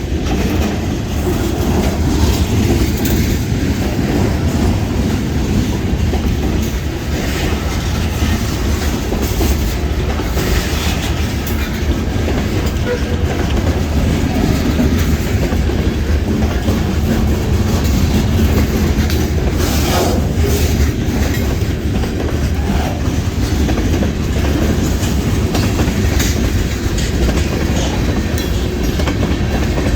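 Freight train rolling past close by, the cars' wheels clicking and clattering over the rail joints with a steady rumble.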